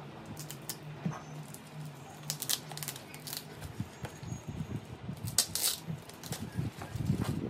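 Scissors snipping into the white wrapping of a gift box, then the wrapping being pulled and torn off by hand: a run of sharp snips and crinkly crackles, the loudest a little over five seconds in.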